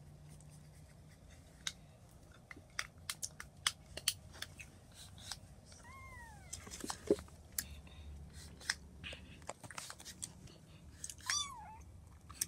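Kitten mewing twice, short high calls that rise and fall, about six seconds in and again near the end. Scattered light clicks and taps run between them.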